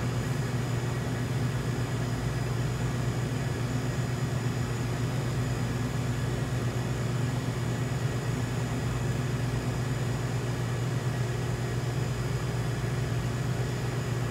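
Steady low hum with an even hiss from the ventilation of a commercial kitchen.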